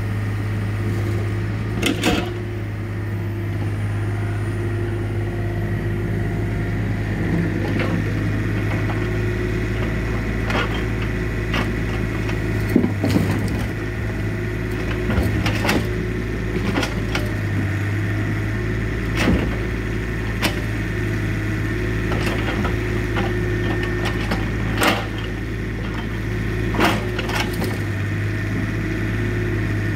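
Yanmar mini excavator's diesel engine running steadily, with about ten sharp wooden knocks scattered through as its grapple strikes and grips logs.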